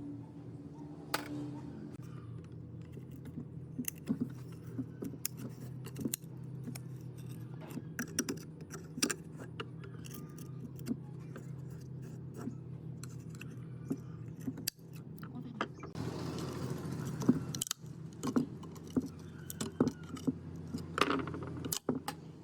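Metal parts and hand tools clinking and tapping irregularly while an old water pump is worked on, over a steady low hum. About sixteen seconds in there is a short stretch of rougher, scraping noise.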